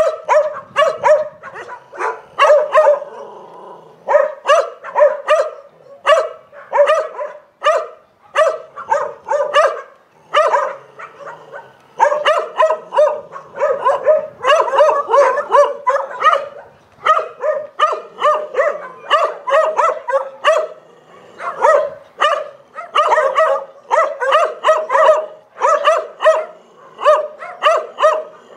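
Dogs barking in rapid strings of several barks a second, with short breaks now and then.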